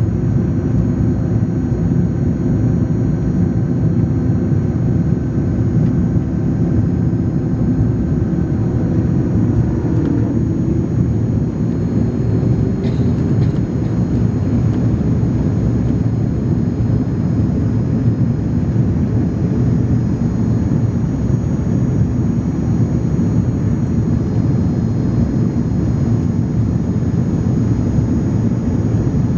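Airbus A300 jet engines running with a loud, steady rushing noise; their whining tones drop and fade about ten seconds in.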